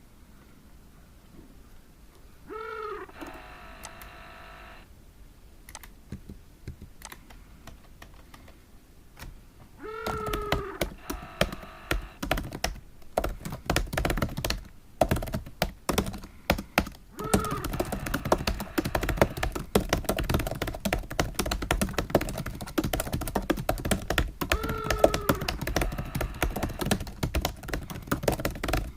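Fast typing on a computer keyboard: dense, rapid key clicks that start about ten seconds in after a quieter stretch. A short falling tone sounds near the start and recurs a few times during the typing.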